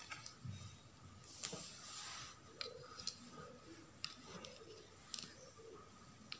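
Faint handling noise: cloth rustling and sliding, with a few light clicks and taps as a tape measure and a wooden ruler are laid on the fabric.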